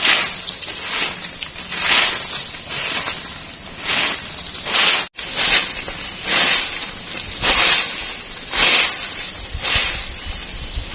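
A steady high-pitched insect drone from the forest, with repeated rustling strokes about once a second, like footsteps or camp work in leaf litter. The sound cuts out for an instant about halfway.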